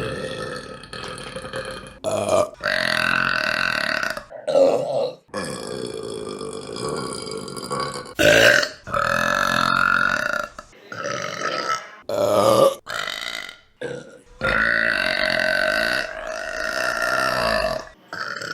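Women burping, one loud burp after another in quick succession, about eight in all, several of them long drawn-out belches lasting two to three seconds, each cut off abruptly before the next begins.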